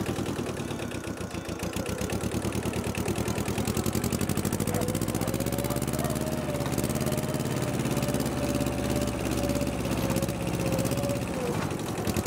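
Compact tractor engine running with a fast even chug. It picks up a little about four seconds in and holds steady with a thin whine over it, then eases off near the end.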